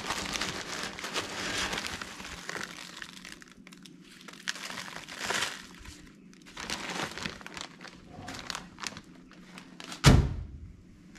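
A bag of rust flakes and grit cleaned out of a corroded fuel tank, handled and crinkling, with heavy rustling for the first few seconds and then on and off. A single sharp thump about ten seconds in.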